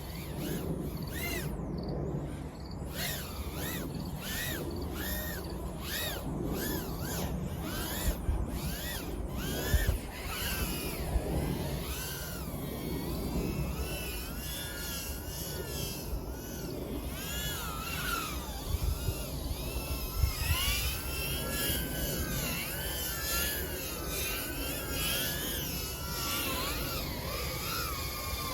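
1S tiny whoop quadcopter's small brushless motors whining in flight, the pitch swooping up and down over and over as the throttle changes, over a steady low hiss. A few sharp knocks stand out around the middle.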